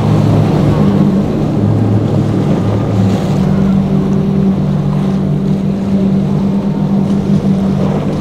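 Three outboard motors on a large center-console boat running at speed, with water rushing along the hull. The engine drone shifts a little in pitch over the first few seconds, then holds steady.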